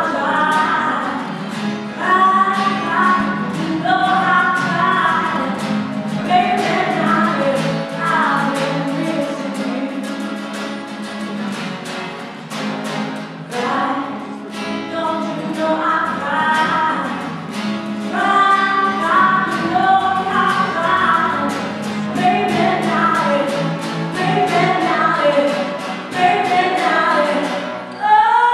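Live female vocals over two strummed acoustic guitars, a slow blues song.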